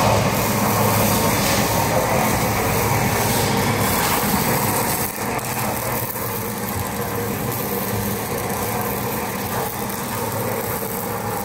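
XK-400 two-roll rubber mixing mill running on test: its electric motor and gear reducer drive the two rolls with a steady mechanical hum.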